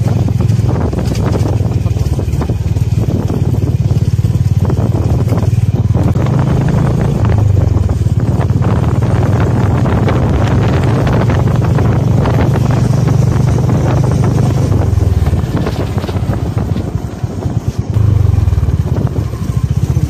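A moving vehicle's engine running steadily with rumble and wind noise on the microphone, easing briefly about sixteen seconds in before picking up again.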